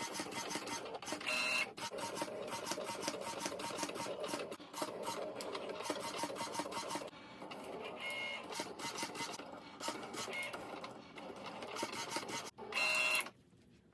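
Cricut cutting machine cutting a sheet of printed PVC plastic: its carriage and roller motors whir with fast, steady clicking, broken by a few brief higher-pitched tones. The machine falls quiet shortly before the end, as the cut finishes.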